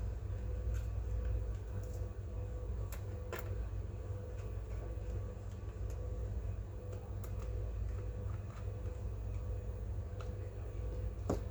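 Steady low hum with a faint constant tone, broken by a few light, scattered clicks and taps, the sharpest one near the end.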